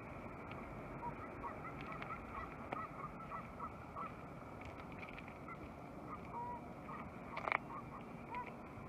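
Canada geese honking: many short, separate calls over steady background noise, with one louder sound about three-quarters of the way through.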